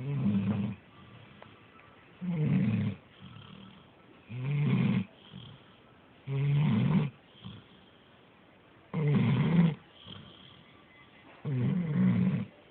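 A pet snoring in its sleep: six rough, low snores, one about every two seconds, with faint breaths between them.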